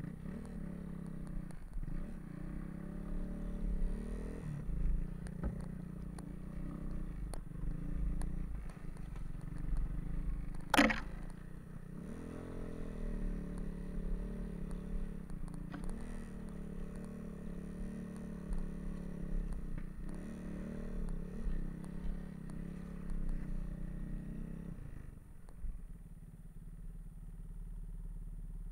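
Dirt-bike engine on a snowbike (motorcycle with a front ski and rear track) running through deep snow, its revs rising and falling. A single sharp knock about eleven seconds in is the loudest sound. Near the end the engine note drops away to a low rumble.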